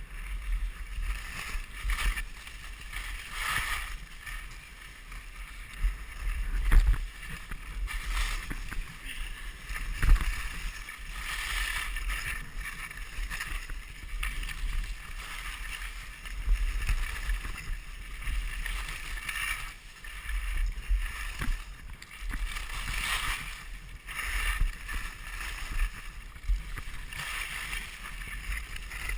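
Skis hissing and scraping over packed snow, swelling and fading with each turn, over a steady low wind rumble on the microphone. A couple of sharp thumps, about seven seconds in and again about ten seconds in.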